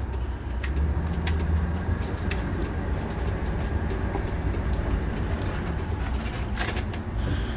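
Motorhome engine running steadily at low speed, heard from inside the cab, with scattered light clicks and rattles.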